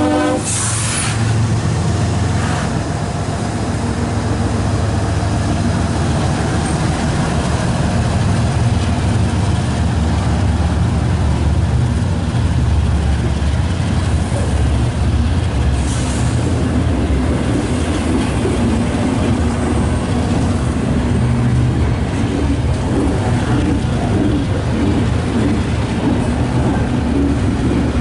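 CSX diesel locomotives passing close, then an intermodal train's double-stack container cars rolling by with a loud, steady rumble of wheels on rail.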